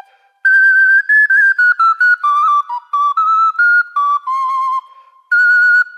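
Small carved duct flute playing a quick, high folk tune. After a brief pause at the start the melody runs in short notes that step gradually lower, breaks off for a moment near the end, then starts again on a high note.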